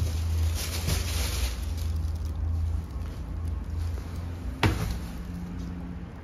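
Shopping bags rustling and being handled as they are carried in and set down on a counter, with one sharp knock about four and a half seconds in, over a steady low rumble.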